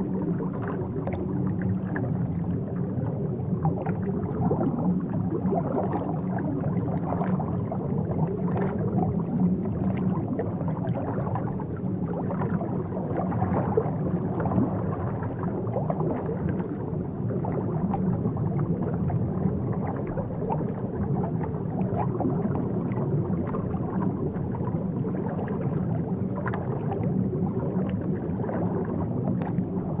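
Continuous underwater water ambience: a steady low rush with constant small bubbling and gurgling, without pause or change.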